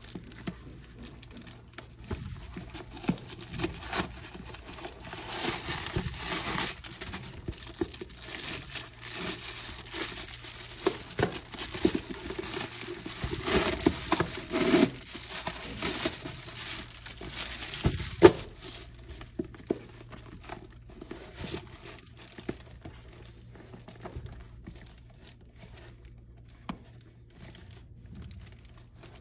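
Rustling and crinkling as a quilted black leather flap bag and its fabric dust bag are handled, with many small clicks and knocks from the bag's flap and hardware. The handling is busiest for the first two-thirds, with one sharper knock near the end of that stretch, then thins to lighter occasional taps.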